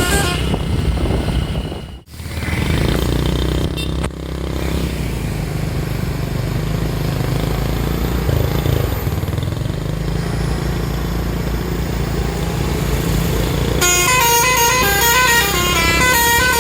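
A bus's Basuri telolet horn plays a fast tune of quick stepped notes, heard briefly at the very start and again from about three seconds before the end. Between the two, a steady engine and road rumble.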